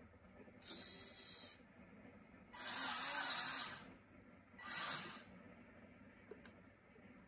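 Steering servo of a homemade PVC radio-controlled mini tractor whirring in three short bursts as it turns the front wheels, the middle burst the longest and loudest.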